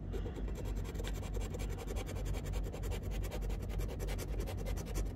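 Scratch-off lottery ticket being scraped with a round disc-shaped scratcher tool: rapid, steady back-and-forth scratching strokes, many a second, as the latex coating is rubbed off.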